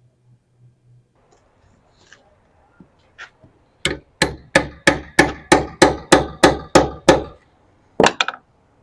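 A hammer striking metal about ten times at a steady pace of roughly three blows a second, each blow ringing, then three quick blows near the end.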